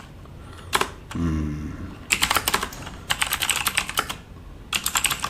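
Typing on a Corsair K70 RGB MK.2 mechanical keyboard with Cherry MX Blue switches: four quick bursts of keystrokes. The keystrokes have a soft 'pu-pu-pu' character rather than a crisp 'ka-ka-ka' clack.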